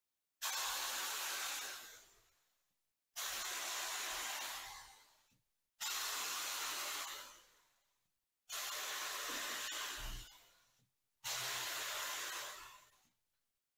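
Gravity-feed spray gun hissing as it sprays finish onto wood: five separate trigger pulls about every three seconds, each an abrupt start that fades out as the trigger is released.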